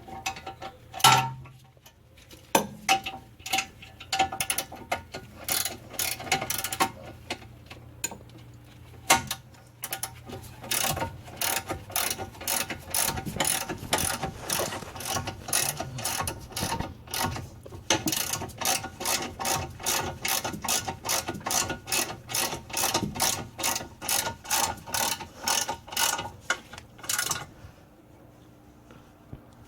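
Ratchet wrench clicking at about three clicks a second, with pauses, as the bolts of a new rear brake caliper bracket are run in and tightened. The clicking stops near the end.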